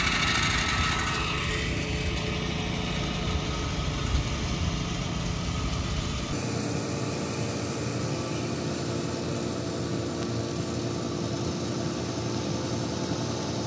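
5000-pound electric winch on a hand-truck dolly running steadily as it winches in a strap, pulling and rolling up a deflated inflatable. About six seconds in the sound changes abruptly to a thinner steady drone with a faint hum.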